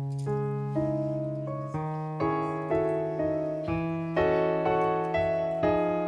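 Piano playing the slow introduction to a hymn: single notes struck about twice a second, each fading away, over bass notes that change every couple of seconds.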